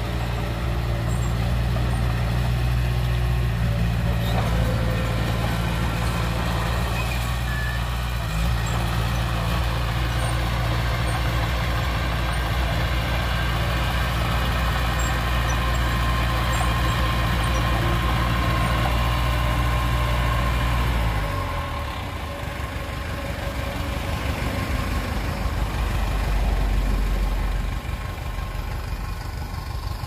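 Komatsu D20P crawler bulldozer's diesel engine running steadily while the dozer pushes and grades soil. About two-thirds of the way through, the engine note drops sharply and goes on as a looser, lower rumble that swells again near the end.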